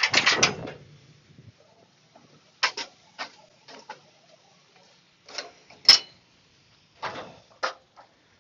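A short rustle, then scattered light clicks and taps, about eight over several seconds, with the sharpest one near the middle.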